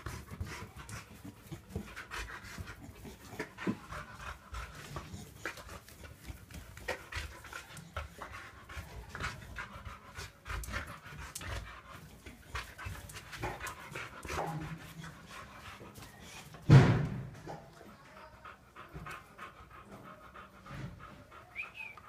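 Boxer dog panting, with many short clicks and scuffs throughout, and one sudden loud thump about seventeen seconds in.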